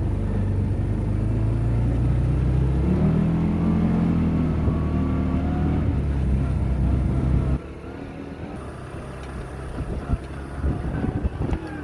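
A motor vehicle engine running, its pitch rising about three seconds in, then cutting off suddenly about seven and a half seconds in, leaving a quieter background with scattered knocks and clicks.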